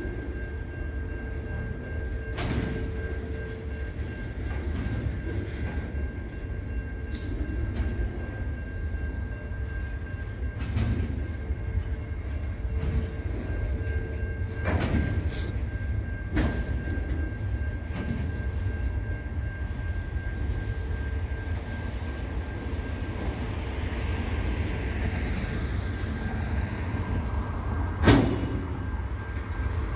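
Intermodal freight train of container wagons rolling past: a steady low rumble with scattered clanks and wheel clicks, and a thin steady high whine over it. One loud sharp clank comes near the end.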